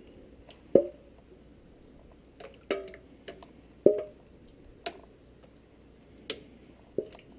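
Ladle knocking and scraping against a stainless steel mixing bowl while scooping out custard: about seven sharp knocks, the loudest about a second in and about four seconds in, the bowl ringing briefly after the stronger ones.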